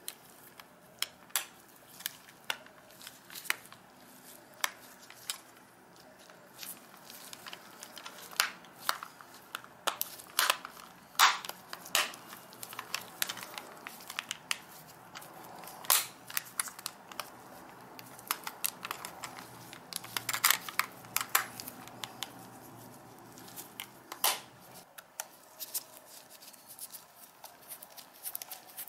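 Plastic and metal parts of a compact digital camera clicking and snapping as its body is handled and fitted back together, with irregular sharp clicks, some in quick clusters, over faint rubbing and handling noise.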